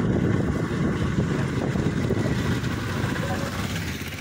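Motorbike riding on a wet road in the rain: wind rushing over the microphone over the engine running, with a hiss of tyres and spray from the wet surface. It grows a little quieter near the end.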